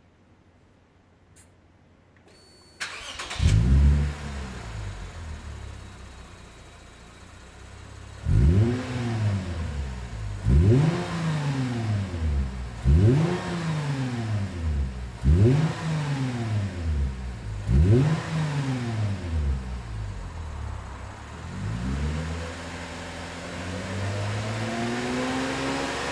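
Lexus IS250's 2.5-litre V6 started and revved through a fairly quiet stainless aftermarket rear muffler section with a silencer. It catches about three seconds in, flares and settles to idle, then gives five quick throttle blips a couple of seconds apart and a softer sixth. Near the end the revs rise slowly and hold.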